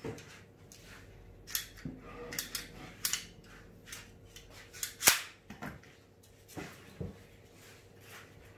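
Pneumatic nail gun firing nails into plywood: a handful of sharp shots at irregular intervals, about a second or so apart, the loudest about five seconds in.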